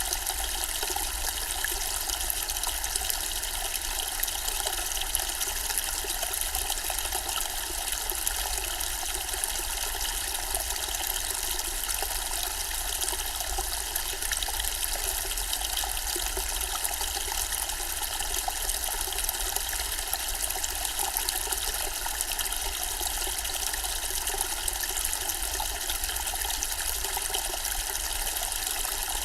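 Zen-style water fountain, water trickling and splashing steadily without a break.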